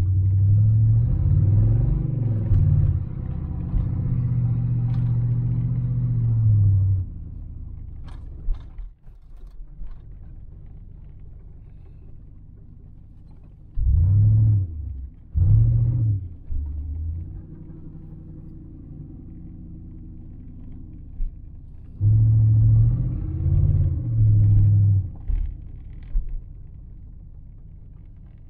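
1997 Chevrolet K1500's 5.7 L Vortec V8 heard from inside the cab, pulling under acceleration in three loud runs, its pitch climbing and falling back in steps. Between the runs it settles to a quieter, steady running.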